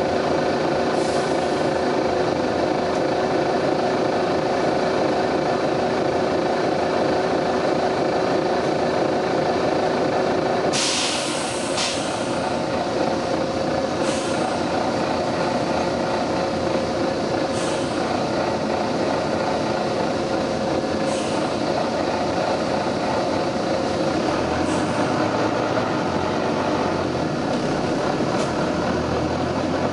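Volvo B9TL double-decker bus running on its diesel engine. Its compressed-air system lets off a strong hiss for about a second, about eleven seconds in, with shorter hisses every few seconds, and the engine note changes after the long hiss.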